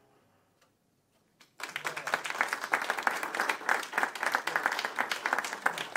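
After a moment of near silence, an audience starts clapping about a second and a half in and keeps applauding steadily.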